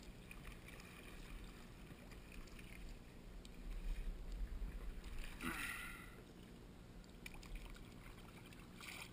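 Kayak paddling in shallow spring water: faint paddle strokes and water moving around the hull, with a low rumble underneath and one louder splash a little past halfway.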